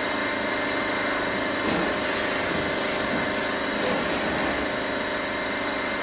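A steady, unbroken drone with several held tones over a hiss, even in level throughout.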